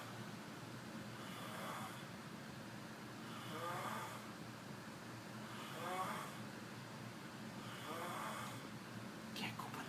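A person snoring steadily in sleep: four snores about two seconds apart.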